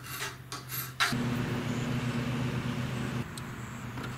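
A few quick strokes of a hand file on metal held in a vise. About a second in, a steady engine or motor hum takes over and runs on, dropping somewhat in level near the three-second mark.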